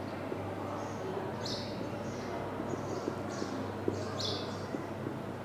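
Marker writing on a whiteboard: short, high, scratchy strokes, with the loudest about a second and a half in and past four seconds, over a steady low room hum.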